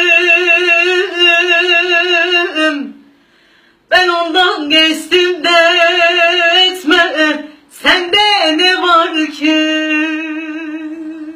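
A woman singing unaccompanied, holding long notes with a wide vibrato. Her phrases break for a breath about three seconds in and again near eight seconds.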